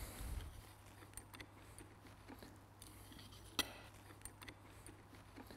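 Faint metallic clicks and knocks from a telescopic handle seated on the lever of a TU16 Tirfor hand winch, with one sharper click about three and a half seconds in, over a faint steady hum.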